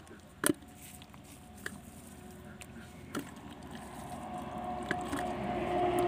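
A few sharp taps and knocks as small fish are picked from a bamboo-rimmed net and dropped into a plastic bucket, the loudest about half a second in. From about four seconds in, a steady low hum grows louder.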